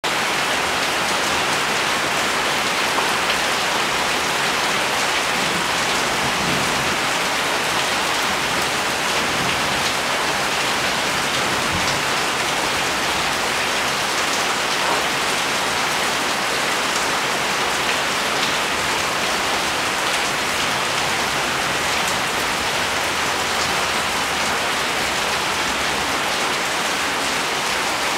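Steady rain falling, an even hiss of drops with no breaks.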